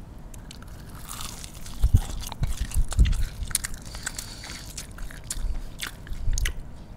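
Biting into and chewing a fried mini pastel pastry close to the microphone: a scatter of small crackles and clicks from the crust, with a few soft thumps of the chewing.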